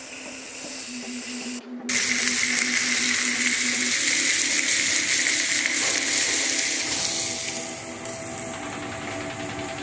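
Food sizzling loudly as it fries on a hot cooking surface: a steady hiss that starts after a short break about two seconds in and eases off after about seven seconds.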